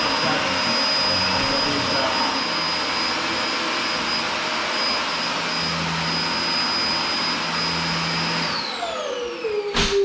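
Dyson DC24 upright vacuum cleaner running with a steady high whine, then switched off about eight seconds in, its motor pitch falling as it spins down. A sharp click comes near the end.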